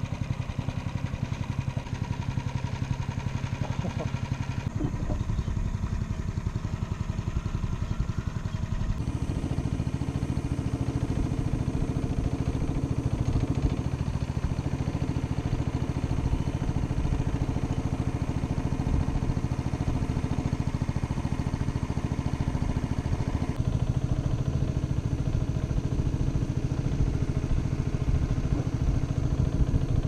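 Motor of a wooden river boat running steadily underway, with a few abrupt shifts in tone.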